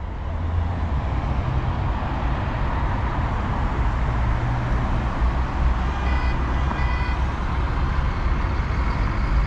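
Road traffic: cars and a city bus running past, with steady engine rumble and tyre noise. Two short high tones sound about six and seven seconds in.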